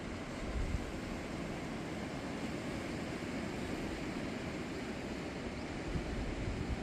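Steady wash of sea surf and wind, with low gusts buffeting the microphone near the start and near the end.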